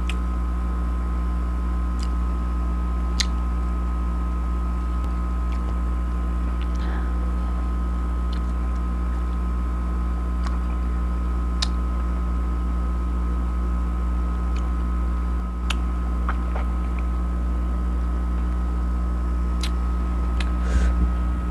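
Steady low hum with a few faint high tones held under it, unchanging throughout. A few faint, scattered clicks of someone chewing fruit are heard over it.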